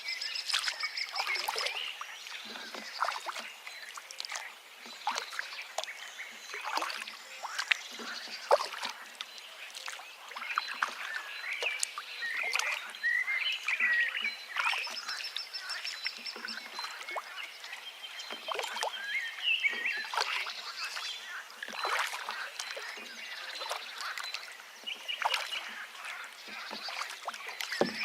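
A forest stream babbling and splashing over rocks, with several birds singing over it: rapid high trills, chirps and short whistled notes.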